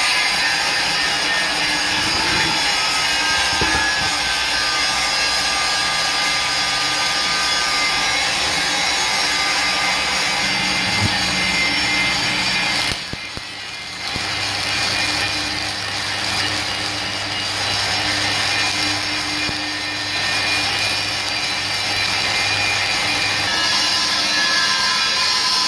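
Stick welding on a steel truck wheel rim: the steady crackling hiss of the electric arc, with a low hum beneath it. The arc breaks off briefly about 13 seconds in, then strikes again.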